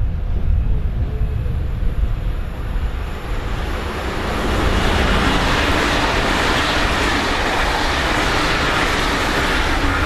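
A train running along the track, its rushing noise building about four seconds in and then staying loud.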